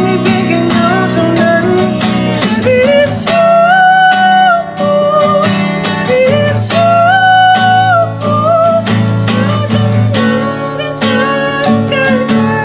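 Acoustic guitar strummed with a man's voice singing a melody over it, holding some notes long.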